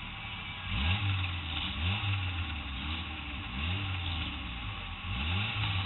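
Stock car's engine heard from inside the cabin, revving up and dropping back again and again, about once a second, over a steady background noise.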